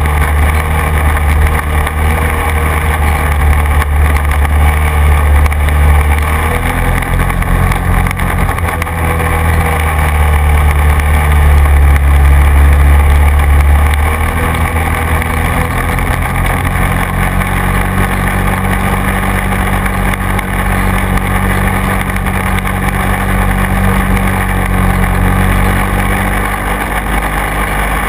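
Quad bike engine running under way, its pitch shifting up and down in steps several times as the speed changes.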